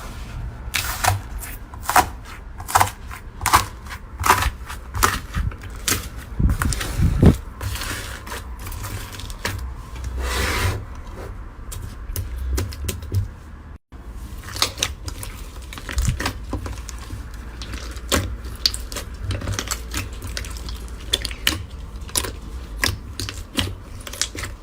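Slime being squeezed and pressed by hand, giving a quick irregular run of sticky clicks, crackles and small pops. The sound breaks off for a moment about fourteen seconds in, then goes on.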